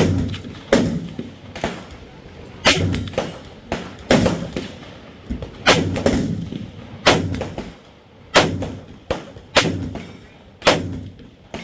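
OWR Armament 13.9 AR-15 rifle fired semi-automatically, about twenty sharp shots at an irregular pace of roughly one to two a second. The shots vary in loudness, and each rings briefly after the crack.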